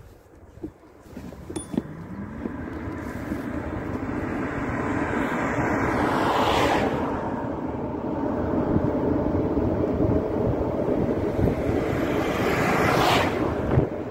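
A vehicle moving along a road, its running noise mixed with heavy wind buffeting the microphone; it builds up over the first couple of seconds from a quiet start, with two louder swells around the middle and near the end.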